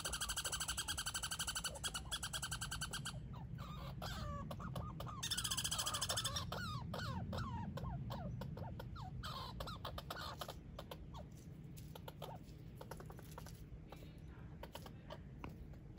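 Squirrel chattering: a rapid, rattling trill for the first three seconds and again briefly about five seconds in, with short squeaky chirps sliding down in pitch in between. The calls fade after about ten seconds.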